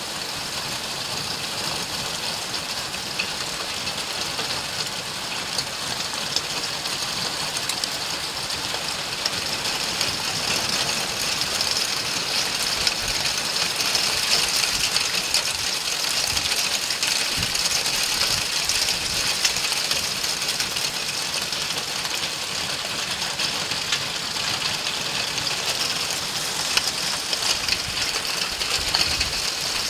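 Heavy rain mixed with hail pelting pavement and ground: a dense, steady hiss full of small sharp ticks from the hailstones, growing a little heavier about a third of the way in.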